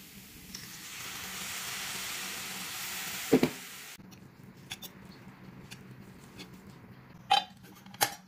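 Sweet potato leaves sizzling in a hot stainless steel pot as a fork stirs them, with a sharp clank of the fork against the pot about three seconds in. Then light scraping taps, and two louder metal clanks near the end.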